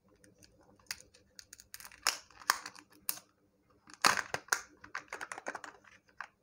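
Plastic capsule of a Melties Spacemen chocolate-ball toy being twisted and pried open by hand: irregular clicks and crackles of the plastic shell, loudest about four seconds in.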